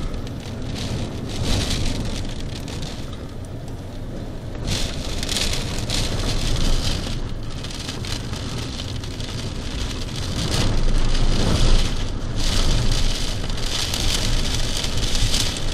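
Tornado-force storm wind and heavy rain beating against a window pane, surging louder and easing off in gusts several times.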